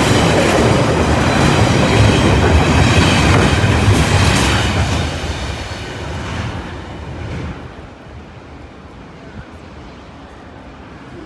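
Container wagons of a freight train rolling past over a level crossing, wheels rumbling and clattering over the rails. It is loud for about the first five seconds, then fades away over the next few seconds as the tail of the train goes by.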